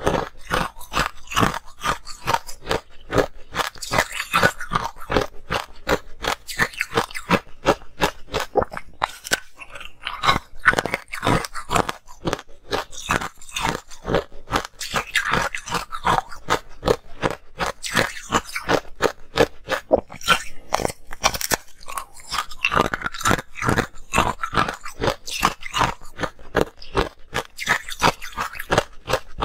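Ice coated in green powder being chewed: a steady run of sharp, rapid crunches, several a second.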